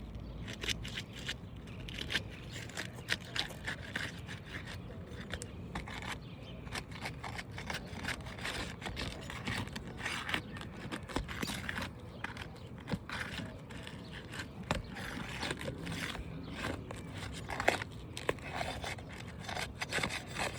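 A slender pry bar working under asphalt three-tab roof shingles, loosening them and breaking their adhesive seals: a dense, irregular run of short clicks and scrapes.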